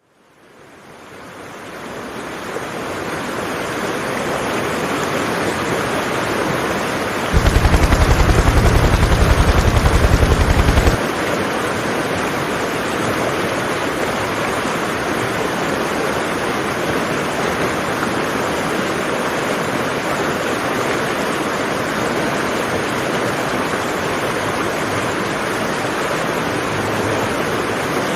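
Steady rushing water noise that fades in over the first couple of seconds. From about seven to eleven seconds in, a louder, rapid low pulsing sits on top of it.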